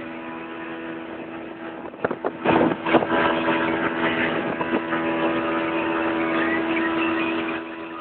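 Motorboat engine running steadily while the boat is underway. A few sharp knocks come about two to three seconds in, after which it runs louder, and it drops back down just before the end.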